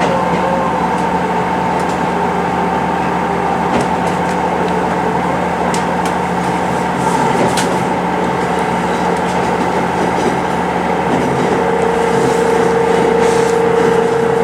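Diesel railcar running, heard from inside: a steady engine and transmission drone, with a second whining tone joining in near the end.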